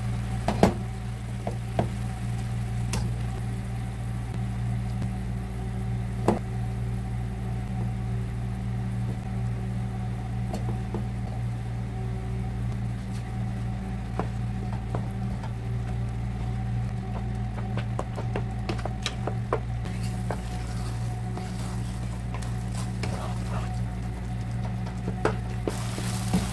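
A wooden spatula knocking and scraping in a nonstick frying pan as cooked rice is stirred into bubbling brown syrup, with scattered sharp clicks, over a steady low hum.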